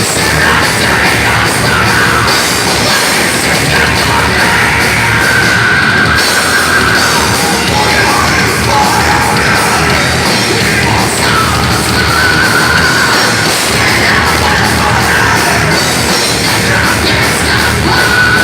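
Thrash metal band playing live at full volume: distorted electric guitars, bass and drums, without a break.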